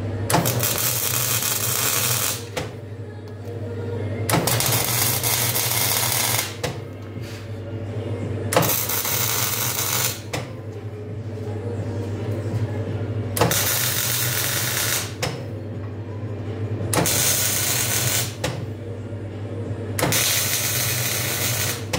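Electric arc welding tacks: six separate spells of crackling arc, each about two seconds long, with short pauses between them. A steady low hum runs underneath.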